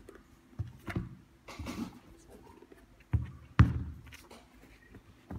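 A pair of leather sneakers being handled: rustling and several soft knocks as a shoe is turned over and the pair is set down on a cloth-covered table, the loudest knock about three and a half seconds in.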